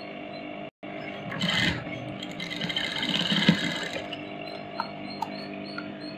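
Sewing machine running in a short burst of stitching, from about one and a half to four seconds in.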